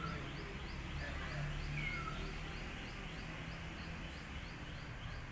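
Outdoor ambience: a high, even chirp repeating about three times a second, a few short whistled bird calls, and a low steady rumble underneath.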